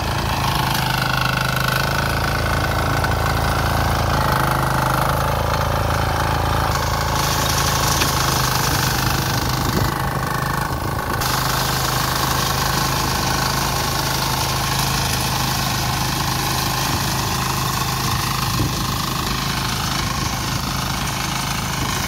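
Small engine of a hand-held brush-cutter wheat reaper running steadily as its blade cuts standing wheat.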